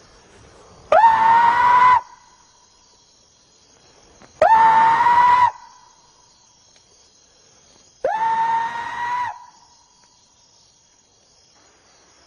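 Three high-pitched, shrieky Bigfoot imitation calls, about three and a half seconds apart. Each swoops quickly up in pitch and holds a steady shriek for about a second, the last slightly weaker and longer. Insects trill faintly and steadily behind them.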